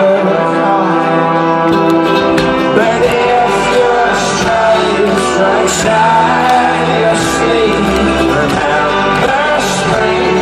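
Live folk-rock band playing an instrumental passage between sung lines: strummed acoustic guitar and banjo over held chords, with cymbal strikes.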